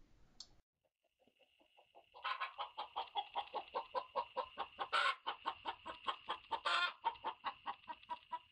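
Backyard hens clucking: a fast, steady run of short clucks, about five a second, starting about two seconds in, broken by two louder, higher squawks near the middle.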